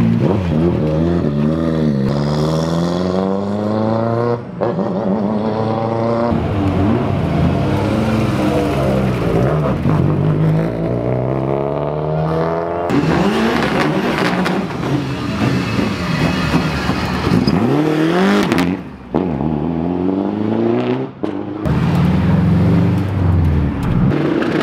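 Rally car engines revving hard and accelerating, climbing in pitch and dropping back with each gear change, several times over. There are a few sudden breaks where one clip cuts to the next.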